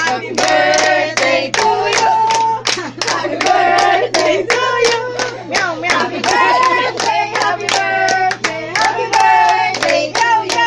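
People singing a birthday song together while clapping along in a steady beat, about three claps a second.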